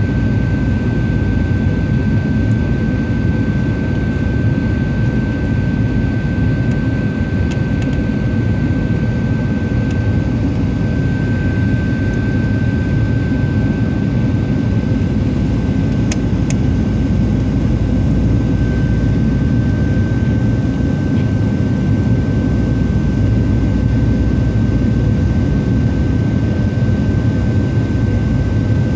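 Steady roar of a Boeing 737-700's CFM56-7B jet engines and rushing air, heard from inside the passenger cabin during descent, with a steady high whine running through it.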